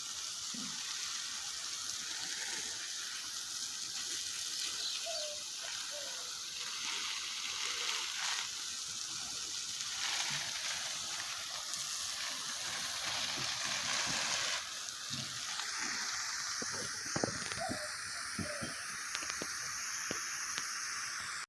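Water streaming steadily onto garden plants and soil, a continuous hissing gush that swells and eases as the stream is moved.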